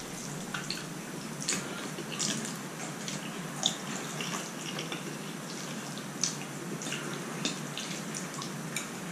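Close-miked chewing and eating of noodles with chopsticks: soft mouth sounds with about half a dozen short, sharp smacks and clicks scattered through, over a steady hiss.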